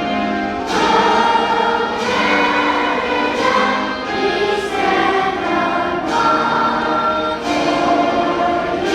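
A national anthem sung by a choir with orchestral accompaniment, in slow sustained notes that change about once a second.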